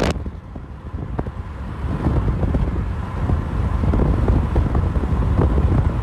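Low, uneven rumble of a car on the move, heard from inside the cabin.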